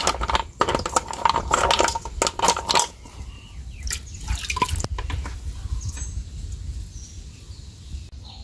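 Wet freshwater mussel shells clacking against each other and the aluminium pot as a hand stirs them. The clicks come thick and fast for about three seconds, then thin out to a few scattered clicks.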